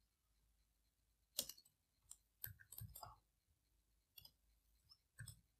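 Faint, scattered clicks of a computer mouse and keyboard: a single click, then a cluster of several, then one more near the end, with near silence between.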